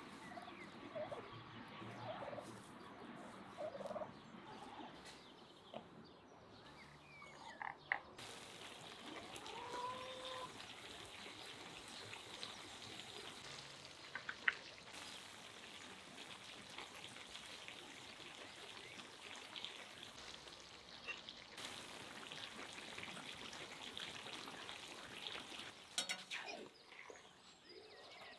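Poultry calling now and then over a faint, steady background, including a short call that bends up and down about ten seconds in. Near the end come a few sharp clicks.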